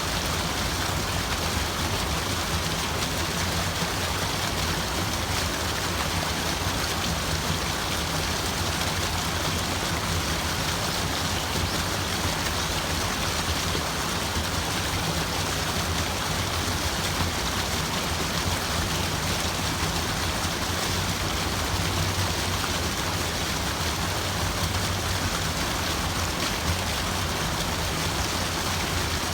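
Steady rushing water, an even hiss with a low rumble underneath and no breaks.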